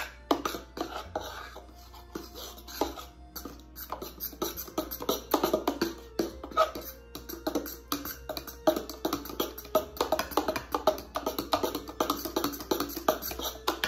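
Background music with a quick, busy percussive beat.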